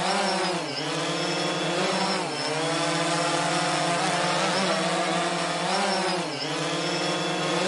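DJI Mavic 3 quadcopter's propellers and motors whining close to the microphone in flight. The pitch dips briefly three times as the motor speed drops and recovers.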